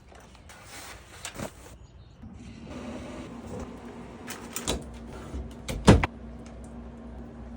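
Kitchen handling sounds: a few knocks and clatters, the loudest a sharp bang about six seconds in, over a steady low hum that starts about two seconds in.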